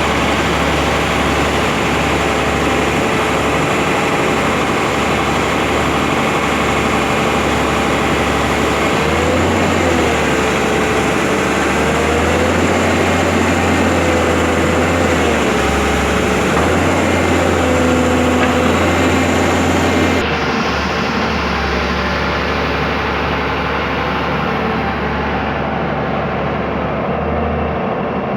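Mobile crane's heavy diesel engine running, its pitch dipping and rising several times midway as it takes load. The sound changes abruptly about two-thirds of the way through.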